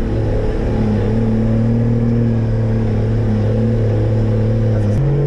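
Toyota 4x4's engine heard from inside the cab while driving off-road, running at a steady pitch, then its note steps up abruptly near the end.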